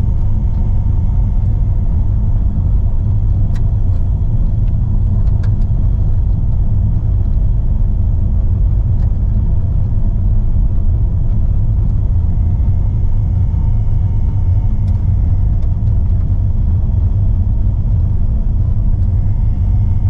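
Steady low rumble of a car driving, engine and tyre noise heard from inside the cabin on a rough chip-seal road, with a few faint ticks.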